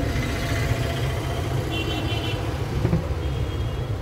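Steady low rumble of outdoor street background noise, with traffic running.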